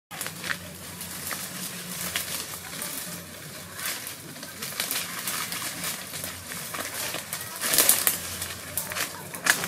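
Leaves and dry twigs rustling and crackling as someone moves through scrub and handles the branches, with a louder burst of crackling about eight seconds in.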